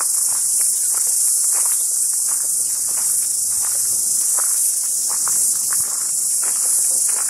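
A loud, steady, high-pitched chorus of summer insects, with footsteps on a gravel path about every half second.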